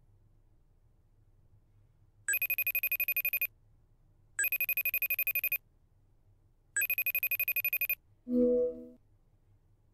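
iPhone FaceTime outgoing ringback tone: three fast-pulsing ring bursts of about a second each, roughly two seconds apart. Near the end a short, lower, louder tone sounds as the call ends unanswered.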